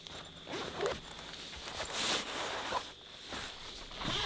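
Zipper on a canvas pouch pulled open in several short strokes, with fabric rustling as the thermal monocular inside is handled.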